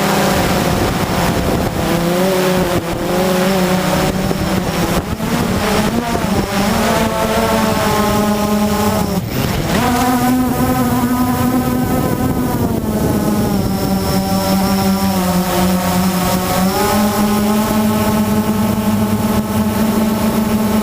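Blade QX 350 quadcopter's electric motors and propellers running in flight: a steady buzzing hum whose pitch shifts up and down as the throttle changes, with a brief dip about nine seconds in. Wind noise rushes over it.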